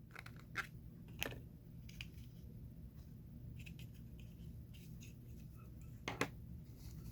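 Faint clicks and light rustling from small parts and their packaging being handled, with a sharp click about a second in and another near the end.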